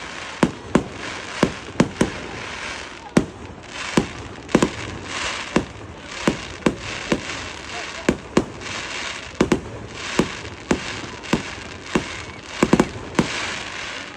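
Fireworks display: aerial shells going off in a rapid, irregular string of sharp bangs, about one or two a second, over a continuous crackling hiss.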